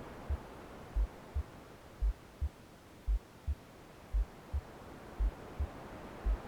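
Slow heartbeat in a womb-sound mix: low, muffled lub-dub double thumps, a little more than one pair a second. Underneath is soft white noise that fades and swells slowly.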